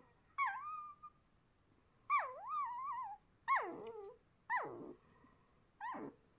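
Newborn puppies whimpering: five thin, high cries a second or so apart, each wavering and sliding down in pitch, the second one drawn out the longest.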